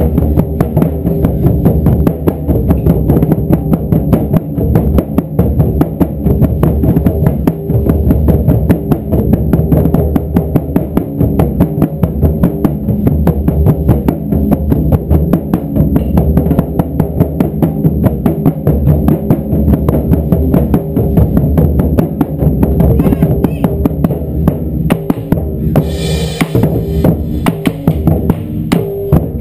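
Taiko drum ensemble pounding out a fast, steady beat of dense, low, booming strikes with no break. Near the end a brighter, sharper layer joins the drums.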